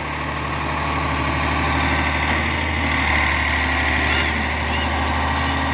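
Diesel engine of a heavy construction machine running steadily at a low, even speed.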